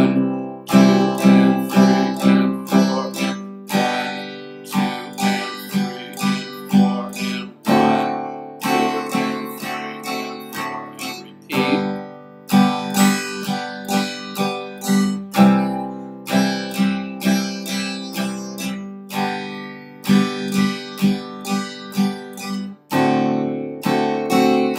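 Steel-string acoustic guitar strummed with a pick in a steady pattern: a down strum held for a full beat, then quick down-up eighth-note strums, with the chord changing every few seconds.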